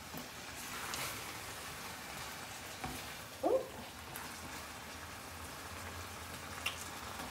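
Food sizzling in a frying pan, a steady hiss, with a brief sliding tone about three and a half seconds in and a light click near the end.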